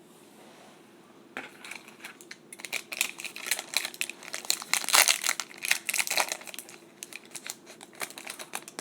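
Trading-card pack wrapper being crinkled and torn open, with irregular crackling from about a second and a half in until near the end.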